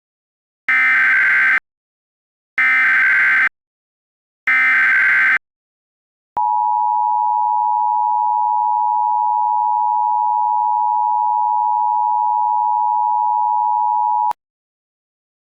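Emergency Alert System signal: three short bursts of warbling SAME header data tones, then the two-tone attention signal of 853 and 960 Hz held steady for about eight seconds before cutting off abruptly.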